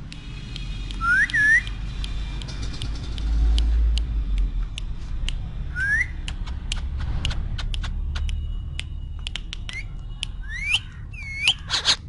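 Indian ringneck parakeet giving short rising whistles: a pair about a second in, one around six seconds and a few more near the end. A run of sharp clicks fills the second half over a low rumble.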